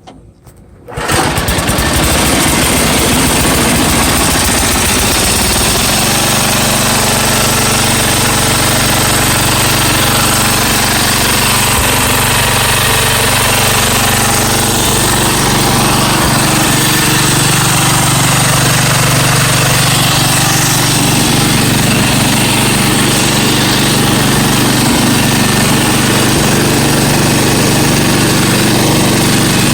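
Briggs & Stratton engine of a 1972 Bradford Stinger lawn tractor starting up about a second in, then running steadily and loudly. Its note settles and evens out about six seconds in.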